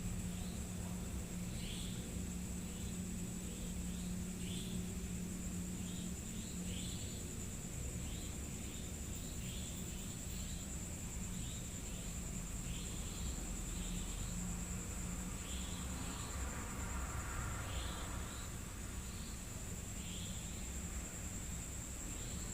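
Night insects: crickets keep up a steady high trill while other insects add short chirps about once a second. A low hum sits underneath and stops about seven seconds in.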